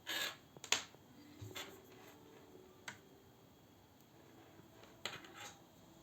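Handling noise: a few sharp clicks and short rustles at irregular intervals, with a loud click about a second in and another pair around five seconds.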